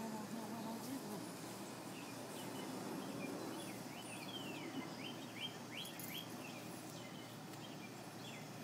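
Backyard outdoor ambience with a songbird singing: a run of quick, downward-sweeping chirps in the middle, over a steady background hiss.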